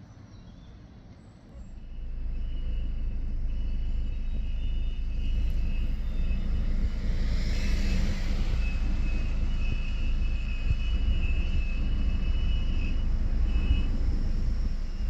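Airbus A350-1000 prototype's Rolls-Royce Trent XWB-97 jet engines at take-off power: a deep steady rumble with a thin high whine. It comes in suddenly about two seconds in, and a hissing surge swells near the middle as the jet passes closest.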